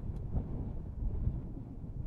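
Wind blowing: a deep rush of noise that swells and dips in gusts.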